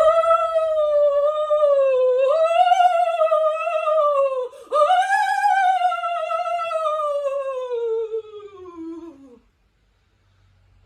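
A woman's voice imitating the howling wind of a snowstorm: two long, wavering 'woo' calls, the second sliding down in pitch until it stops about nine seconds in.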